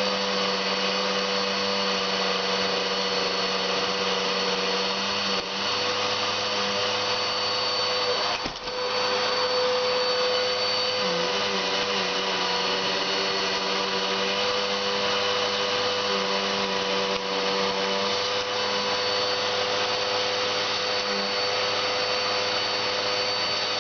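Vacuum cleaner motor running steadily, with a brief dip in its sound about eight and a half seconds in.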